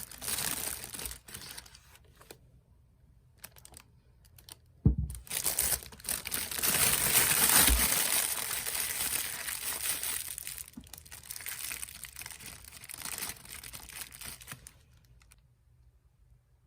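Crinkling and rustling, with two dull knocks about five and eight seconds in; it dies away shortly before the end.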